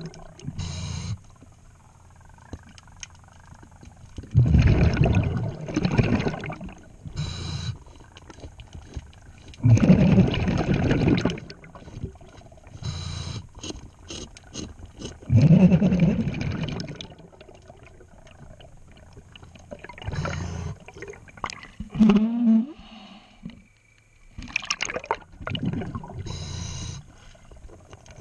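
A diver breathing through a regulator underwater, about five breaths. Each breath is a short hiss from the regulator on the inhale, followed by a longer gurgling rumble of exhaled bubbles.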